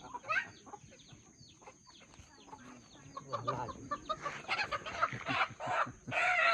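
Desi chickens calling: thin high falling peeps at first, then louder, harsher clucks and squawks coming thicker from about four seconds in.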